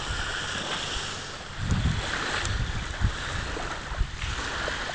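Wind blowing across a phone microphone: a steady rush with irregular low buffeting thumps.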